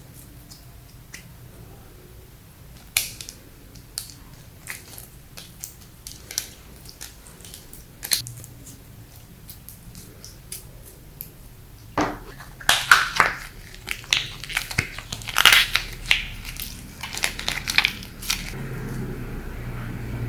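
Slime being squeezed and kneaded by hand, giving sticky clicks and pops. They are scattered at first, then come thicker and louder about twelve seconds in.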